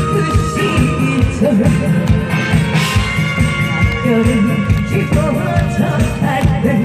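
Guzheng playing a bending, wavering melody over a loud backing track with a steady beat.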